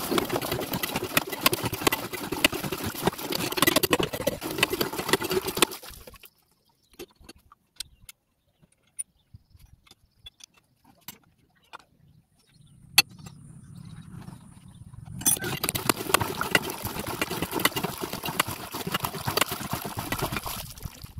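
Water from a freshly repaired cast-iron hand pump gushing from the spout and splashing into a plastic basin. The flow stops about six seconds in, leaving a few faint clicks. It starts again about fifteen seconds in.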